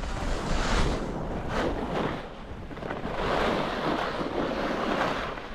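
Wind buffeting the microphone: a rushing noise with a low rumble that swells and eases in gusts, loudest about three to five seconds in.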